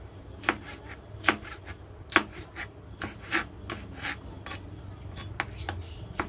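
Knife slicing a capsicum (bell pepper) into thin strips on a cutting board: uneven, sharp knocks of the blade against the board, about two a second.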